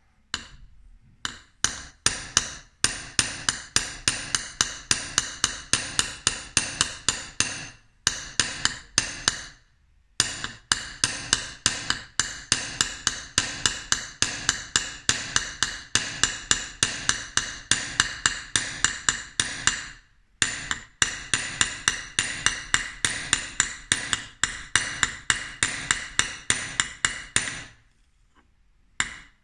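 Small hammer tapping the bevel of a laminated Japanese plane iron held on a steel anvil: quick, even metallic taps about four a second, in runs of several seconds with a few short pauses. This is uradashi, peening the blade to push its back out flat near the edge.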